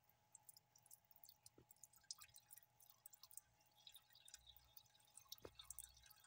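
Faint trickle of a thin stream of tap water splashing onto forceps and into a sink, with scattered drip-like ticks that grow denser about four seconds in: excess stain being rinsed off a specimen.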